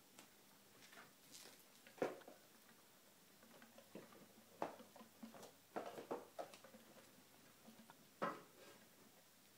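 Faint, scattered rustling and light knocks from pet rats scurrying over a fleece bed cover with a dog biscuit, the sharpest knocks about two seconds in and near the end.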